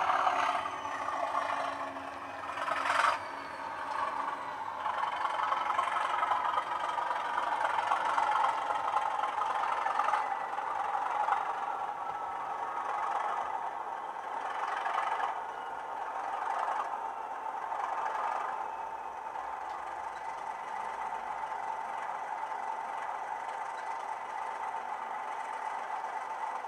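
Sound decoder in a Bachmann Class 37/0 model locomotive playing a Class 37's English Electric diesel engine through a 27mm bass speaker. The engine note falls away as the locomotive slows to a stand, then settles to a steady idle. A sharp noise about three seconds in and a few short noises between about ten and eighteen seconds in.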